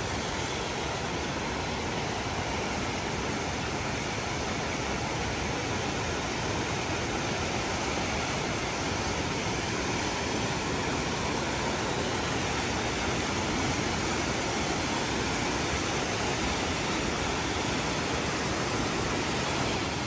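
Steady rush of a waterfall, San Antonio Falls pouring onto the rocks and the stream below, growing slightly louder as it is approached.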